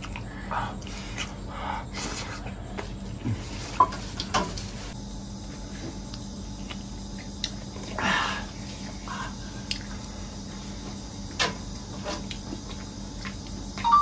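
People eating at a table: scattered small clicks and knocks of utensils and dishes and the sounds of chewing, over a faint steady hum.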